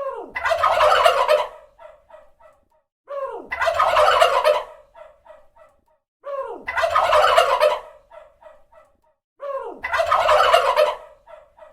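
Turkey gobbling, the same gobble repeated four times about three seconds apart. Each gobble is a loud rapid rattling call about a second long, followed by a few short, fading notes.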